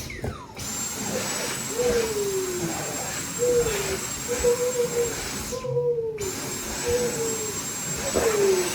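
Vacuum cleaner running with a steady high whine, switched off for a moment about five and a half seconds in and then on again.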